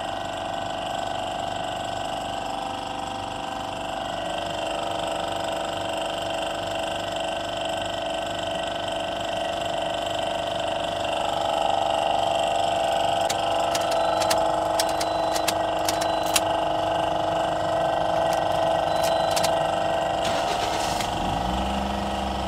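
Steady mechanical hum made of several steady tones, growing louder about halfway through, with a few light clicks in the second half; a deep low rumble comes in just before the end.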